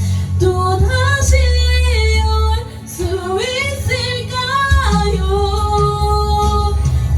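A woman singing over a karaoke backing track, holding long notes and sliding between them, with a short breath about two and a half seconds in.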